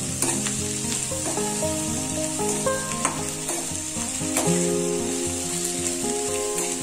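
Chopped green beans and tomato sizzling in hot oil in an iron kadhai while a metal spatula stirs them, with several sharp clicks and scrapes of the spatula against the pan.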